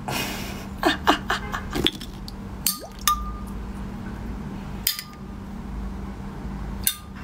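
A metal spoon knocking and clinking inside a glass vase of freshly frozen blue-dyed water: a quick run of taps and short squeaky scrapes in the first two seconds, then three single clinks about two seconds apart, each with a short ring.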